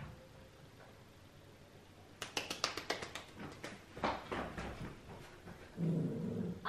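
A small dog playing fetch with a toy: a quick run of claw clicks on a hard floor, a knock about four seconds in, then a low growl near the end as the toy is tugged from its mouth.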